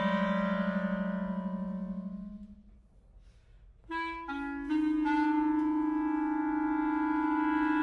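Several clarinets sustaining a chord with a low held note, dying away about two and a half seconds in. After a short silence, new clarinet notes enter in quick steps about four seconds in and settle into a held chord.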